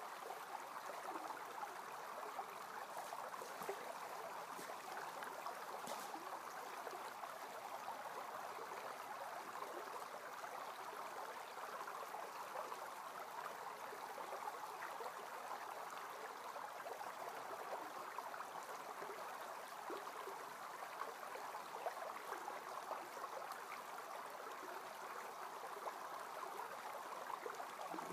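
Steady rushing of a flowing creek, an even hiss with no change, with a faint click about six seconds in.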